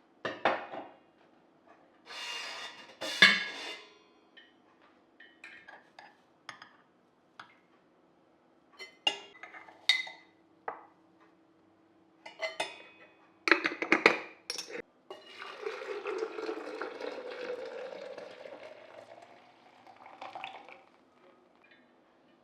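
Objects being handled and unpacked: scattered light clicks, knocks and clinks, with a short rustling stretch about two seconds in and a longer one about fifteen seconds in.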